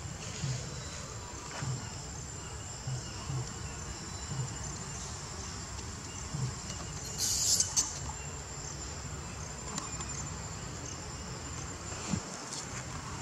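A steady, high-pitched drone of insects. Soft low thuds are scattered through the first half, and a brief hissing burst comes about seven seconds in.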